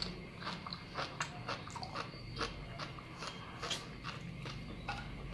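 Mouth chewing a bite of sea grapes (Caulerpa lentillifera seaweed), a springy, bouncy food that gives irregular sharp little clicks and pops, a few a second.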